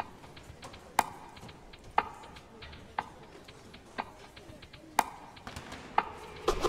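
Sharp, dry knocks in an even beat, one each second, like a clock ticking, repeated seven times.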